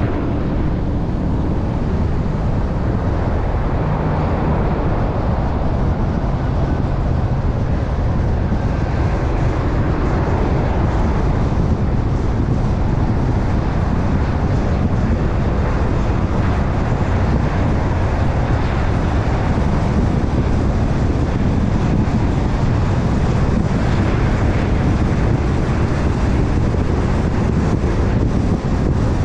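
Car driving along a city road: steady tyre and engine noise with a low rumble.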